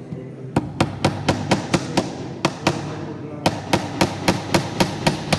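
Small hammer tapping a nail into the corner of a box lid to nail it shut: quick light blows at about four a second, starting about half a second in, with two short pauses.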